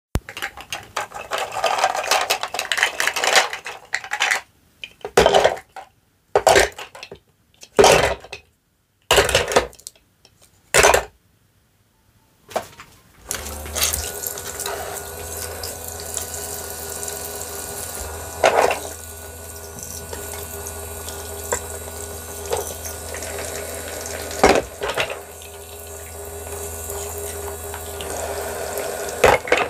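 Hard plastic toy fruit pieces clattering and knocking into a plastic toy sink in short bursts. About halfway through, the toy sink's small electric pump starts humming steadily and water streams from its little faucet, with an occasional knock of plastic pieces.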